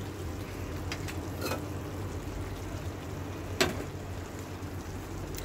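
Cubed pork simmering in a wok on low heat in the juices it has released, a steady soft sizzle, with a few light clicks, the sharpest about three and a half seconds in.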